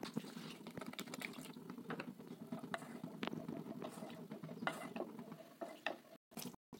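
Spatula stirring wet masala gravy in a kadai: a soft, steady wet churning with irregular clicks and scrapes of the spatula against the pan.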